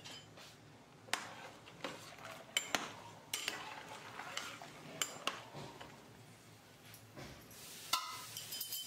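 A metal spoon stirring whole in-shell peanuts in water in a cooking pot. It gives a string of sharp clinks and knocks as it strikes and scrapes the pot and pushes the shells against each other.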